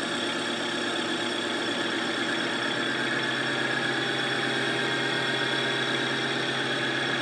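Boye & Emmes 16-inch engine lathe running steadily during a turning pass on a steel wheel spacer: an even machine hum with a hiss, unchanging throughout.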